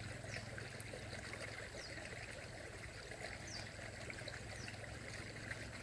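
Faint, steady outdoor background hiss with a low hum under it. A short, high, falling chirp repeats about every second and a half.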